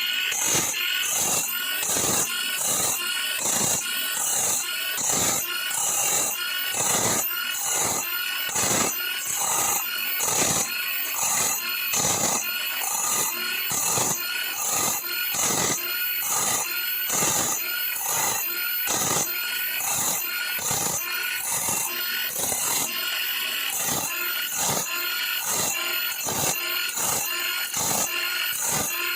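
Electric drill spinning a 7-inch grinding stone that sharpens a bandsaw blade tooth by tooth: a short, high grinding scrape about twice a second in a steady rhythm.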